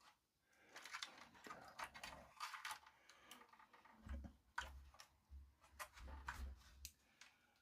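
Faint, scattered clicks and taps of hands handling parts and loose connector plugs inside an amplifier chassis, with a few soft low bumps from about four seconds in.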